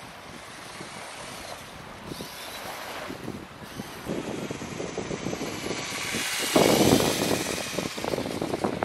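Small radio-controlled car driving over beach sand, its motor whirring and tyres crunching through the sand, growing louder as it comes close and loudest about seven seconds in. Wind noise on the microphone underneath.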